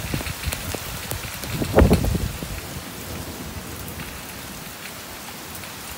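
Heavy rain falling in a steady hiss during a thunderstorm. A strong gust of wind buffets the microphone with a low rumble about two seconds in, then eases.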